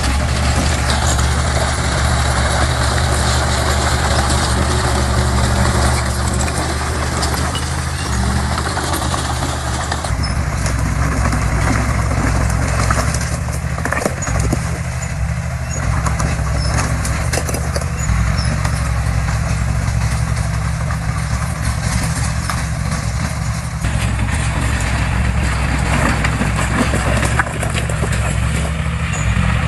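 Heavy diesel engine of earthmoving equipment running steadily with a low, even drone; the sound shifts abruptly about ten seconds in and again a little before the end.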